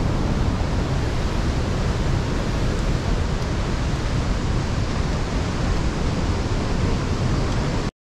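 Steady rushing roar of the Krimml waterfall's falling water, heard from the path beside it; it cuts off abruptly just before the end.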